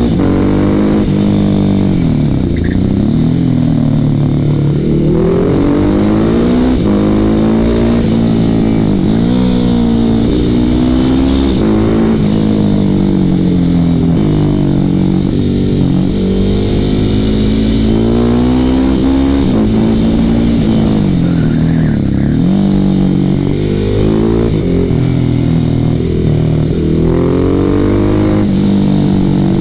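Ducati Hypermotard 1100's air-cooled L-twin engine under way, its pitch climbing and then dropping sharply again and again as the rider accelerates and backs off through a run of bends.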